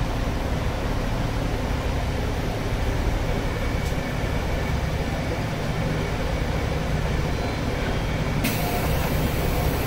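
Diesel railcar running along the line, heard from inside the car as a steady low rumble. A hiss joins near the end.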